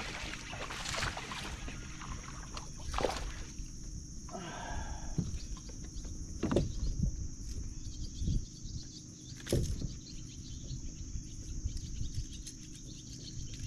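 Water splashing and sloshing beside a plastic kayak as a hooked fish is landed and handled, with a few sharp knocks and clicks about three seconds apart. A steady high buzz runs underneath.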